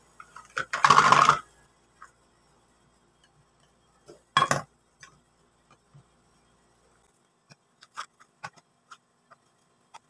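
Plastic glue bottles being handled and set down in a plastic tub: a brief scraping shuffle about a second in, a sharp knock about four and a half seconds in, then a run of light taps and clicks near the end.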